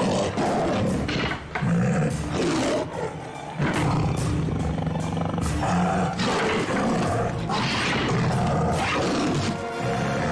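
Sabre-toothed cat (Smilodon) roaring, mixed with a dramatic music score and several sharp hits.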